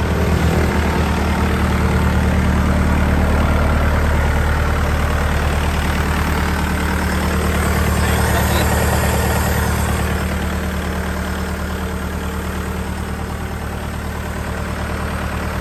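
Kubota L5018 tractor's diesel engine idling steadily, with an even, fast pulsing beat. It is a little quieter in the second half.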